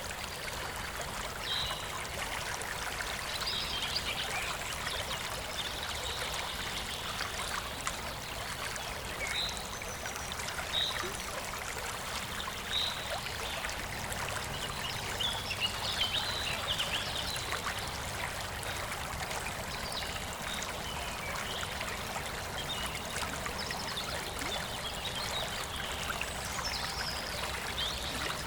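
A small stream babbling steadily, with short bird chirps scattered through it.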